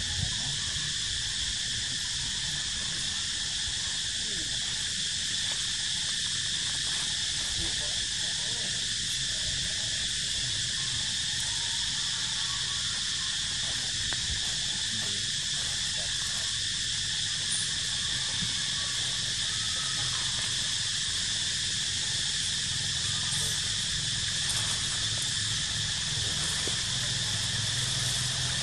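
Steady, unbroken chorus of insects buzzing in the trees, with a low rumble underneath.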